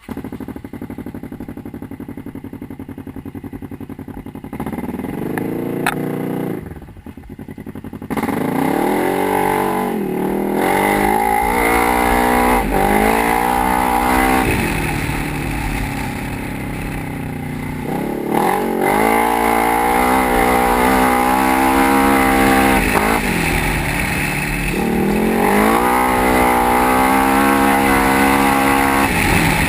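Polaris RZR XP 900 side-by-side's parallel-twin engine running steadily at first, then louder from about eight seconds in, its pitch rising and falling again and again as it accelerates and eases off.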